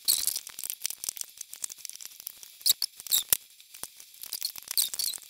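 Irregular small clicks and scratching of a hook and rubber bands being worked over the pegs of a band loom, with a few sharper ticks in the middle.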